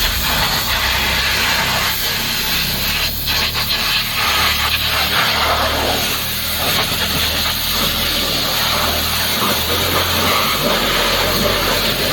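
Pressure washer spraying water: a steady hiss with a low motor hum beneath it.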